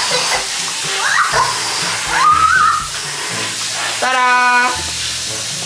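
Water from a garden hose spraying steadily into an inflatable paddling pool, a constant hiss under background music.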